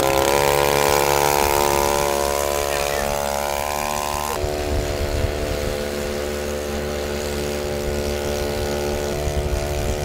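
Small weed-eater-style gas outboard motor running at a steady, even pitch, fading a little as the boat pulls away. The owner suspects a faulty throttle cable is holding it to about half throttle.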